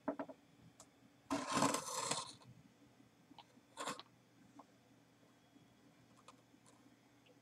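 Handling noise on a desk: a click at the start, a rustling scrape lasting about a second, then a short knock near four seconds in, with faint ticks afterwards.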